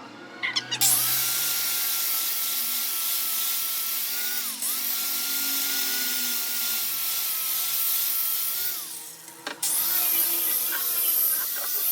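Angle grinder fitted with a brass wire brush, running against rusty steel: a steady motor whine over a harsh scraping hiss. It starts just under a second in, dips for a moment about halfway, stops about three-quarters through and starts again half a second later.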